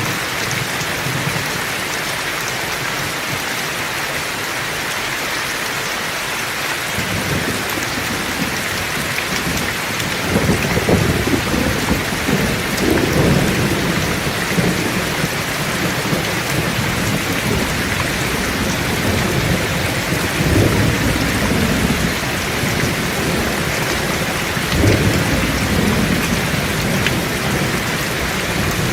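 Heavy rain falling steadily, with thunder that starts rumbling low after several seconds and rolls on in a few louder swells.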